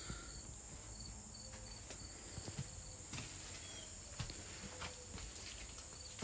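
Steady high-pitched drone of insects calling outside, with a few faint footsteps and taps on the bus floor.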